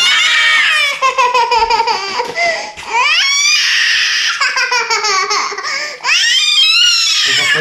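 A small child's loud, high-pitched squeals and shrieks, in about four long cries that glide up and down in pitch, with short breaks between them.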